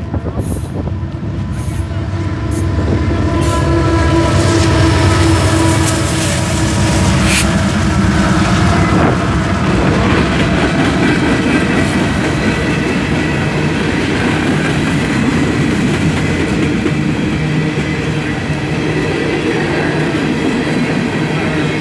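Freight train passing close by: steel wheels of coal hopper cars rumbling and clacking over the rails, with a mid-train diesel locomotive going past near the middle. The sound swells over the first few seconds, and there is a single sharp clank about seven seconds in.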